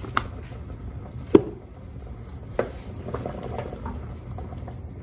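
Wooden spoon stirring a cream-based soup in a stainless-steel stockpot, with a few sharp knocks against the pot, the loudest about a second and a half in, over a low steady hum.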